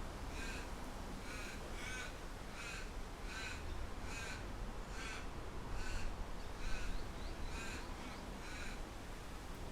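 A bird calling in a regular series of about eleven short, harsh calls, a little less than one a second, which stop near the end. Underneath, a steady low rumble of wind.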